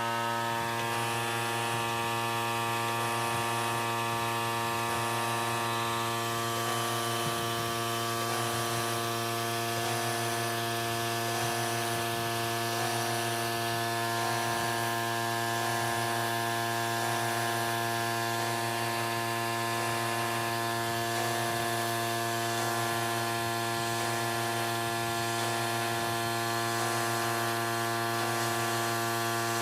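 CNC knee mill running a 3D adaptive clearing toolpath: the spindle and drive motors give a steady hum with a stack of steady tones.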